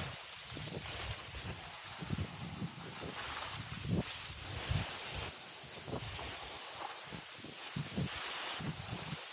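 Snowboard base and edges sliding over packed snow, a steady hissing scrape, with wind buffeting the microphone in irregular low gusts.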